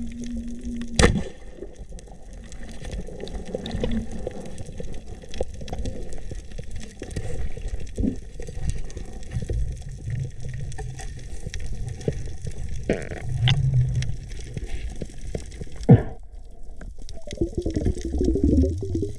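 Muffled water sound heard through an underwater camera: a steady low gurgling wash with a few sharp clicks, the loudest about a second in and another near the end.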